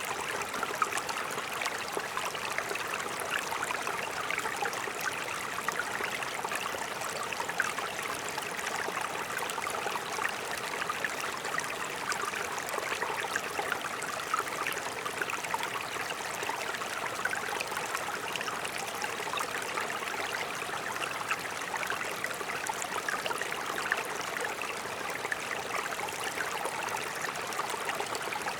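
Mountain stream running over rocks: a steady rushing, splashing flow without let-up.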